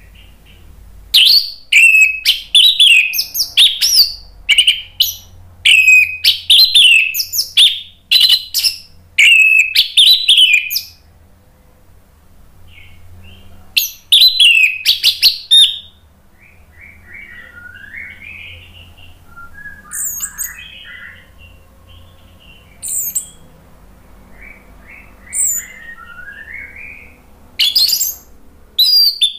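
Orange-headed thrush singing: loud bursts of quick whistled and chattering phrases for the first ten seconds or so, again around the middle and near the end, with softer, lower warbling in between.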